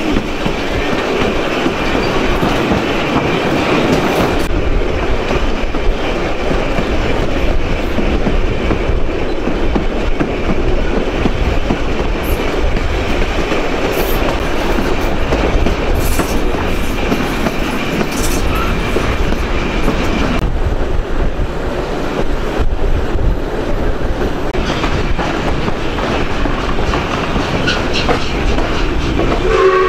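Steam-hauled broad-gauge passenger train running steadily, wheels clicking over the rail joints.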